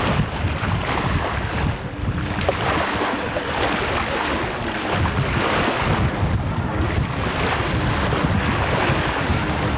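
Wind buffeting the microphone over rushing water and splashing, with a watercraft motor running underneath, steady throughout.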